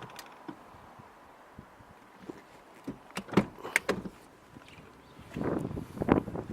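Clicks and knocks from a car's door or interior fittings being handled, with a short scraping rustle near the end.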